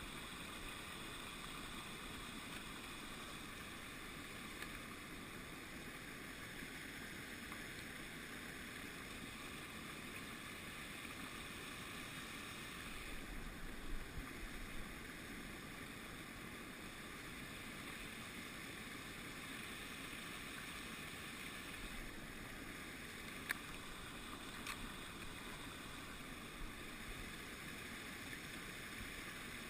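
Steady hiss of flowing creek water, with a couple of faint clicks a little past the middle.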